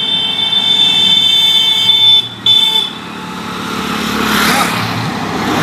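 A vehicle horn sounds a long, steady, high-pitched note, breaks off about two seconds in, is pressed again briefly, and stops. Then a passing vehicle's road noise rises and falls.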